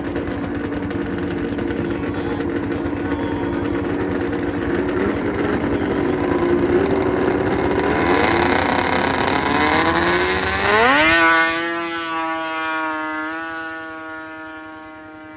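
A 440-class two-stroke racing snowmobile at full throttle, growing louder on its speed run. About eleven seconds in it passes close by with a sharp shift in pitch, then its steady engine note fades away.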